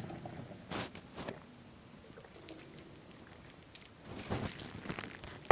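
A few short, soft rustles and knocks of a handheld phone being moved about, with quiet between them.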